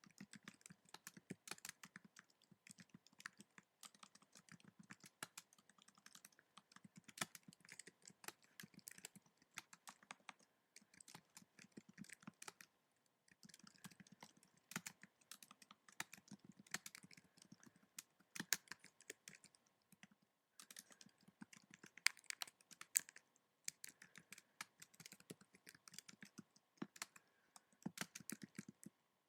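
Computer keyboard being typed on: quick, continuous runs of key clicks, broken by a few short pauses.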